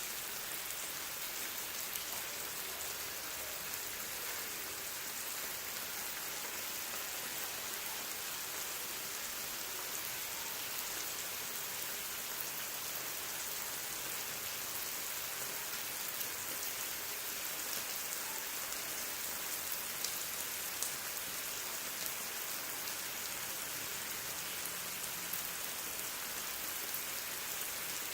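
Thin-sliced lamb sizzling on a grill: a steady hiss with fine crackles.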